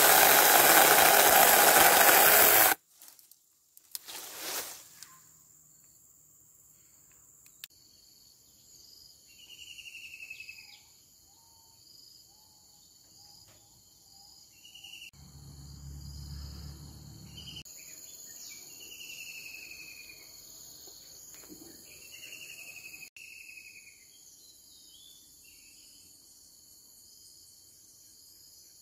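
A 4-inch cordless mini chainsaw cutting through a tree branch, a loud burst that stops sharply just under three seconds in. After that, insects drone steadily and a bird calls over and over with short falling chirps.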